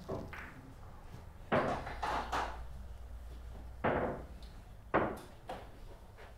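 A few hard knocks and clacks as billiard balls are handled and set down on the table between shots, several close together about a second and a half in, then single knocks near four and five seconds.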